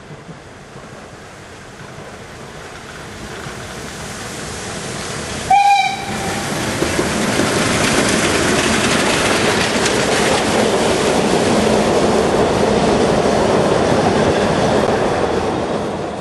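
Narrow-gauge steam train approaching and passing close by: the noise of the locomotive and wagons swells, a short steam-whistle blast sounds about a third of the way in, then the wooden coaches rattle past loudly before the sound drops away near the end.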